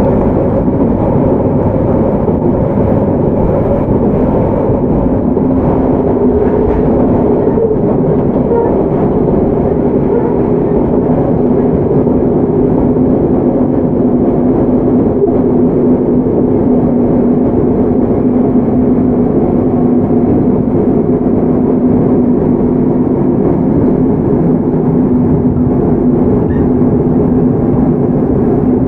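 Inside a JR Hokkaido 731 series electric train's motor car (MoHa 731-114, Hitachi IGBT VVVF drive) running between stations: a steady rumble of wheels on rail with a steady hum under it.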